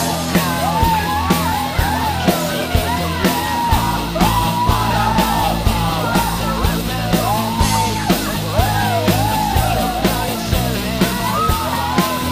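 Rock song with a loud, shouted sung vocal over a band, drums beating steadily.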